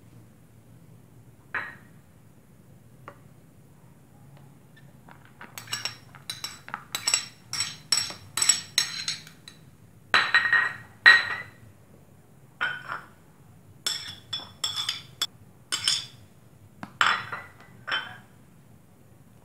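Metal spoon clinking and scraping against a ceramic plate, scraping off minced carrot. After a few quiet seconds come runs of quick sharp clinks, each with a brief ring.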